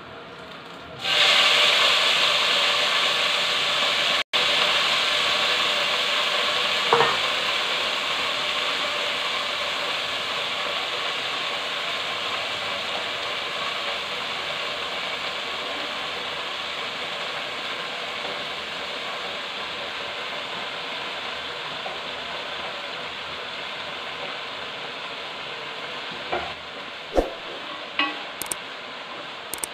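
Chopped mustard greens (lai saag) dropped into hot oil, setting off a loud sizzle about a second in that slowly eases as they fry. Near the end a spatula knocks against the pot a few times while stirring.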